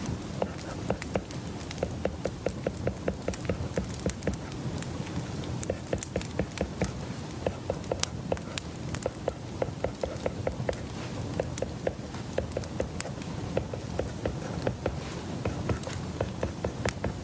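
A rapid, uneven run of light clicks and taps from work at a study desk, about three or four a second, over a steady background hiss.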